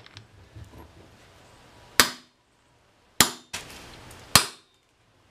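Three hammer blows about a second apart on a steel bearing cap set on a driveshaft's universal joint. Each is a sharp metal strike with a brief ring, knocking the U-joint cross through the yoke to drive out the opposite bearing cap. There are light metal clinks at the start as the cap is set in place.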